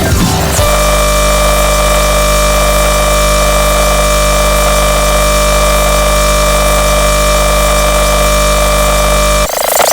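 Loud, harsh, unchanging electronic noise with several held tones layered together. It starts about half a second in and cuts off suddenly near the end.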